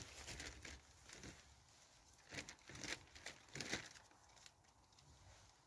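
Faint rustling and crinkling from hands at work as firelighter cubes are lit with a lighter, with a few short crackles about two to four seconds in.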